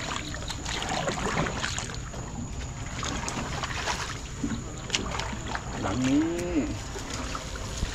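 A wooden paddle dipping and splashing as a small boat is paddled through a weedy marsh, with reeds rustling against the boat and scattered knocks and drips. About six seconds in, a short hum rises and falls.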